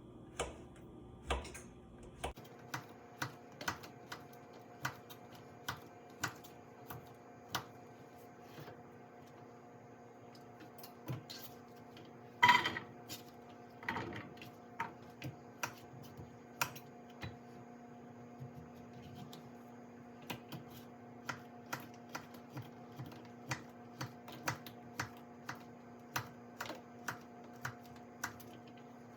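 Kitchen knife slicing zucchini into small rounds on a cutting board: a long run of sharp knocks, roughly one to two a second, with one louder knock near the middle. A steady hum runs underneath.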